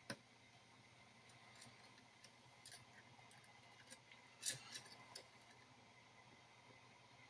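Faint, scattered clicks and light taps of small hand tools working on a circuit board, the sharpest about four and a half seconds in, over near silence.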